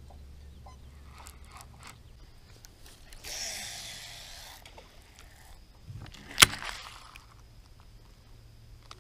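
A cast with a baitcasting reel: the spool whirs as line pays out for about a second, fading as it slows. A couple of seconds later comes one sharp, loud click, with a few faint handling clicks earlier.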